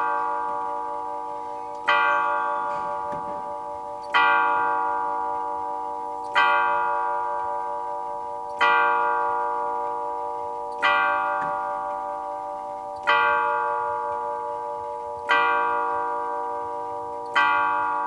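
Elliott of London four-tube chime movement in a grandfather clock striking the hour on a tuned chime tube. It sounds about eight even strokes, one every two seconds or so, each ringing on and fading under the next.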